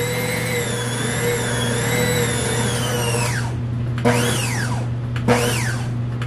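Nutrimill Artiste stand mixer kneading stiff bread dough with its dough hook: the motor runs steadily with a slightly wavering whine. A little over three seconds in it stops, and then gives three short whines that rise and fall.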